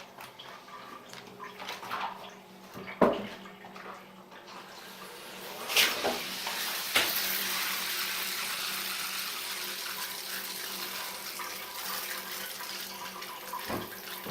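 A few knocks and clicks, then bathroom water running steadily from about six seconds in, an even hiss.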